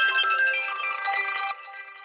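A ringtone on an HTC Rhyme phone playing a short melody through the phone's speaker; its last note ends about one and a half seconds in and fades away.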